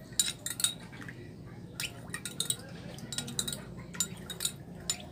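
A metal spoon clinking irregularly against a ceramic mug, stirring sugar into hot water to dissolve it.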